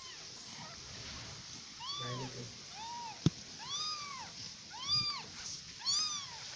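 A kitten meowing: five short, high calls about a second apart, each rising and falling in pitch. One sharp click comes about halfway through.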